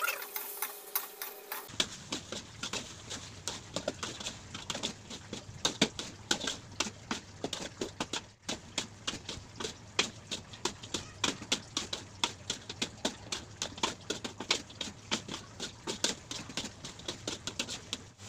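A metal spatula stirring and turning duck pieces in green chili paste in a wok. It makes a quick, uneven run of clicks and scrapes, metal on metal, several a second.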